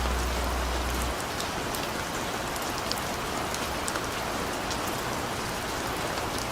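Steady rain falling, an even hiss with scattered sharp drop ticks. A low bass note left over from music dies away about a second in.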